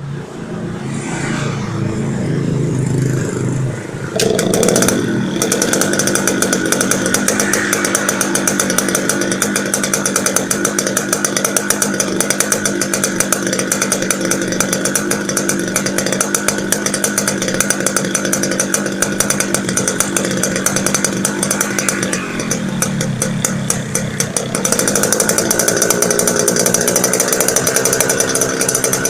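Yamaha RX-King's 135 cc two-stroke single-cylinder engine running at idle with a rough 'ngorok' (snoring) note. The engine note changes abruptly about four seconds in and dips and picks up again around twenty-three seconds.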